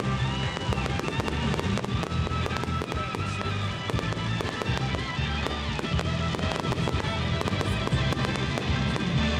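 Fireworks display: many rapid bangs and crackles of bursting fireworks, over loud music with a steady bass that plays throughout.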